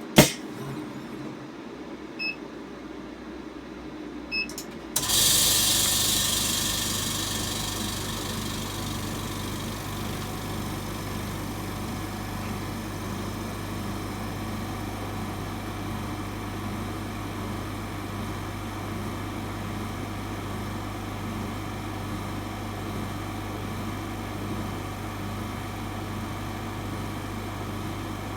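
A sharp click and two small clicks, then about five seconds in an OCA lamination machine starts up: a steady low motor hum with a hiss that is strongest at first and fades over the next few seconds, then settles into a steady run while it works on the display.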